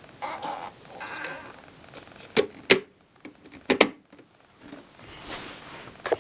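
Handling noises on a small plastic toy washing machine: soft rustling, then a few sharp clicks and knocks, two close together about two and a half seconds in and two more about a second later.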